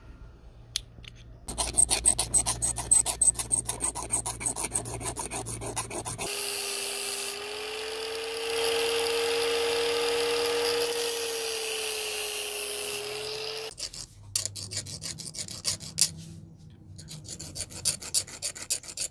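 A hand file rasping in rapid strokes on a small metal brake part, then an angle grinder running with a steady whine for about seven seconds, then the file rasping again. The parts are being filed down because the replacement brake pads are too thick to fit their slot.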